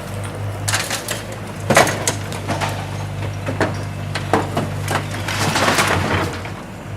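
Diesel loader running steadily while broken brick and debris clatter and crack in a string of sharp knocks. The loudest knock comes a little under two seconds in, and a dense crackling rush of rubble follows near the end.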